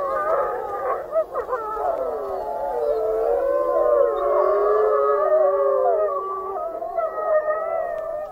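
A pack of gray wolves howling together, a loud chorus of many overlapping voices gliding up and down in pitch: a pack's group howl after winning a territory fight. The chorus cuts off near the end.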